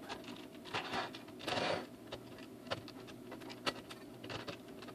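Light, scattered clicks and taps of small metal hardware being handled, with a short scraping rustle about a second and a half in: wing nuts being threaded by hand onto bolts.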